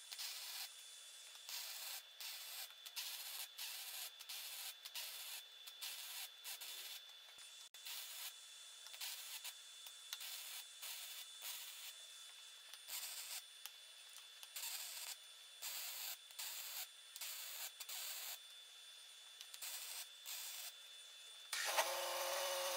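Welding crackle in short stop-start runs, each burst a fraction of a second to about a second long, as worn pivot-pin holes are built up with weld. Near the end a louder sound with a steady hum cuts in for about a second.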